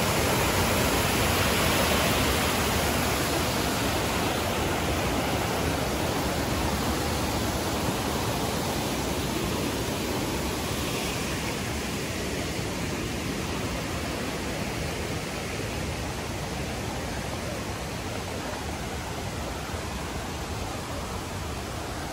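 Kifune River running high and fast, a steady rush of water that fades gradually over the stretch.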